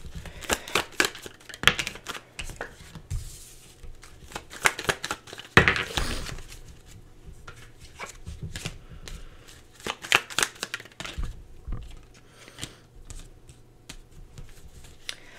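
A deck of tarot cards being shuffled by hand: a run of quick, irregular card snaps and slides. Cards are laid down on the table near the end.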